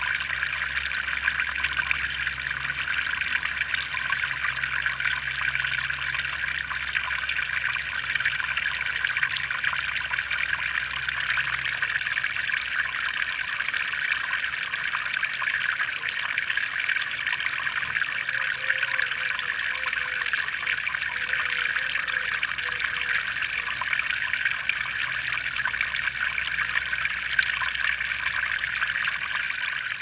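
Smart Solar Elvedon Fairy Rainfall solar fountain: thin streams of water fall from the arch into the basin, with a steady, unbroken trickling splash.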